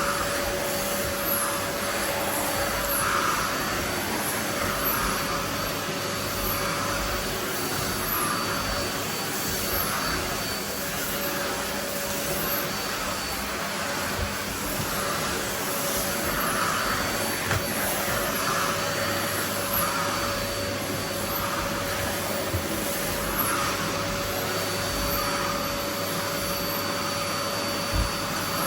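Household vacuum cleaner running continuously, a steady motor hum and whine with a slight swell every second or two.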